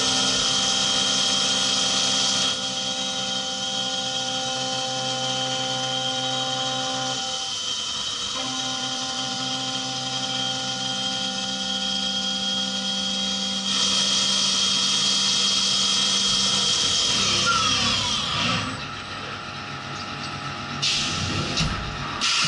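CNC mini mill's 50 mm face mill cutting across an aluminium block under flood coolant: a steady, loud cutting whine with several held spindle tones that shift a couple of times and drop out briefly near the middle. Near the end the cutting stops and a few short knocks follow as the machine changes tools.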